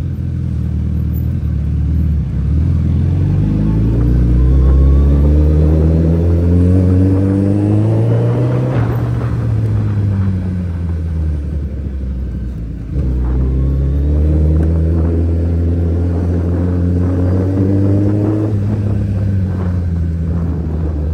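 Suzuki Hayabusa's inline-four engine pulling the bike along, its pitch climbing slowly for several seconds as it accelerates and then dropping back as it eases off. After a sudden change about two-thirds of the way in, it climbs and drops back once more.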